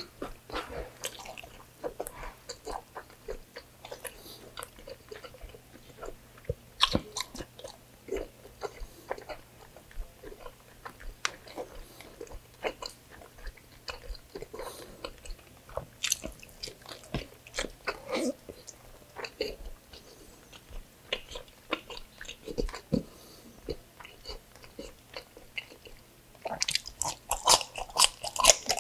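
A man chewing mouthfuls of pork belly adobo and rice, with scattered wet clicks. Near the end comes a dense run of crisp crunches as he bites into a raw cucumber spear.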